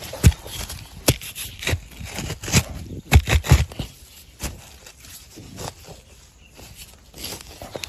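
Dry sandy soil and pine litter being dug and scraped away by hand or a small tool, an uneven series of scrapes and knocks with a quick cluster about three seconds in.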